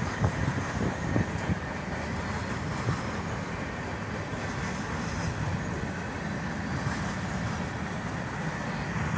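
A CN freight train's empty centerbeam flatcars rolling past, with a steady rumble of steel wheels on rail. A few wheel clacks come in the first second or so.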